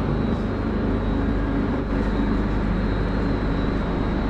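Passenger train at an underground station platform giving a steady low hum and rumble.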